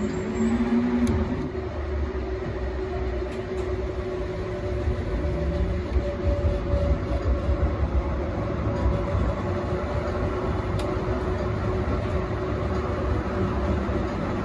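A Yarra Trams A2-class tram running along street track, heard from inside the cab: a steady low rumble of wheels on rail with a steady motor hum.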